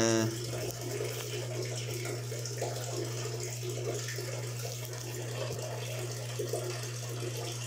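Steady low hum under a faint trickle of running water.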